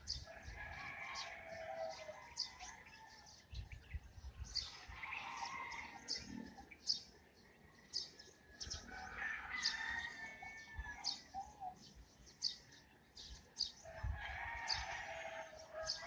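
Morning birdsong: short high chirps repeat about once a second, and four longer, lower calls come in near the start, around four and nine seconds, and near the end.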